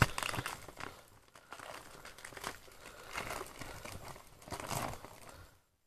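Foil trading-card packet crinkling and tearing as it is ripped open by hand: irregular crackles, a sharp snap right at the start, and louder rustling bursts. It stops abruptly shortly before the end.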